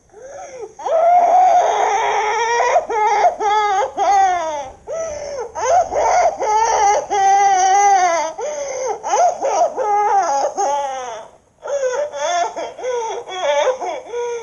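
A high-pitched cartoon voice crying: long wavering wails broken by short pulsing sobs, with a brief pause about eleven seconds in.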